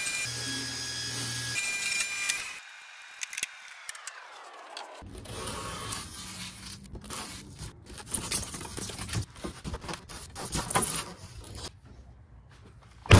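Table saw ripping a sheet of rigid foam insulation board, then its blade winding down with a falling whine. Then a utility knife is drawn along a metal straightedge, scoring the foam board in irregular scraping, rubbing strokes.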